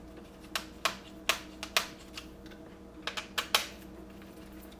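Sharp plastic clicks, one every half second or so, with a quick cluster about three seconds in, as a Phillips screwdriver loosens the screws on the underside of a laptop.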